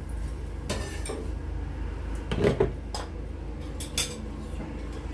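Kitchen utensils and dishes clinking and knocking as food is served from the pans onto plates: a few separate clinks, the loudest a short cluster about halfway through, over a steady low hum.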